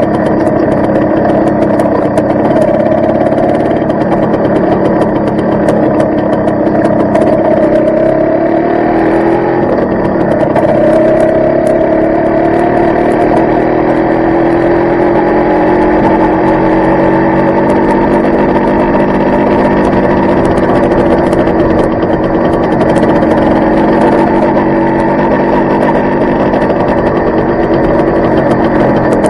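Yamaha RS100T's 100cc single-cylinder two-stroke engine running on the move. Its pitch climbs, drops back about nine seconds in, climbs again, then holds steady as the bike accelerates and cruises.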